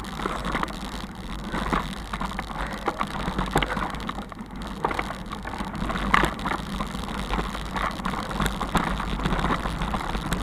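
Bicycle rattling over a cobblestone road: a steady rolling rumble broken by many irregular knocks and clicks as the wheels jolt over the stones.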